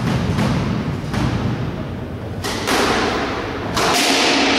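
Squash rally: the ball is struck by rackets and thuds off the court walls in a few sharp hits spaced about a second apart. A louder rush of noise runs underneath from about halfway through.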